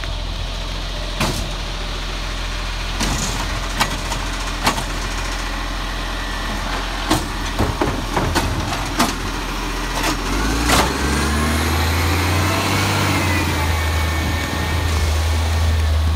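Side-loading garbage truck running, with a series of sharp knocks and clanks as its automated arm grabs, lifts and sets down wheelie bins. About ten seconds in, the engine gets louder and a whine rises in pitch.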